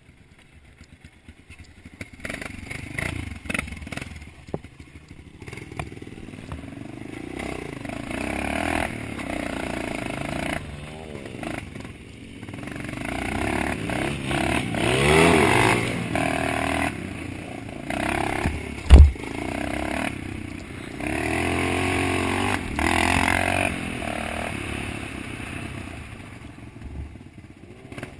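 Dirt bike engine revving up and down under the rider's throttle, its pitch rising and falling repeatedly, with a single sharp knock about two-thirds of the way through.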